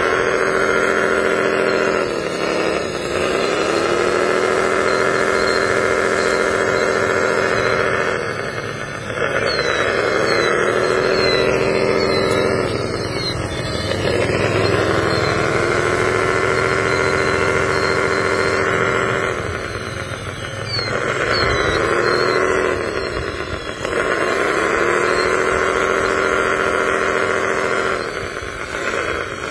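Motor of a radio-controlled toy wheel loader whining as it drives and works, its pitch sagging and climbing back again about six times.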